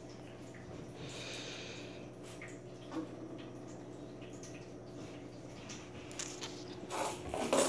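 Faint scattered taps and light knocks of kittens' paws, plastic cups and a small plastic ball on the floor of an empty bathtub, over a steady low hum. A brief cluster of louder knocks comes near the end.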